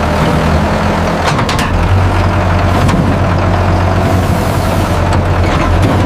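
Heavy construction machine's engine running steadily with a low rumble, with a few sharp clicks about a second and a half in.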